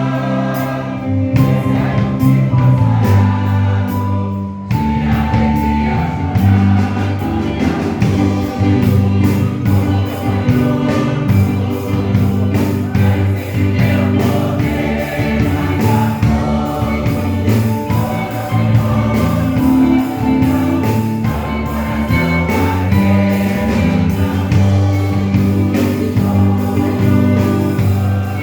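Church choir singing a gospel song with instrumental backing: a strong bass line and a steady beat.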